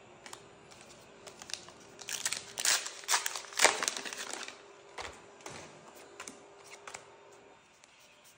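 Foil trading-card booster pack wrapper crinkling and being torn open: about two seconds of loud crackly rustling near the middle, followed by a few light clicks and taps of cards being handled.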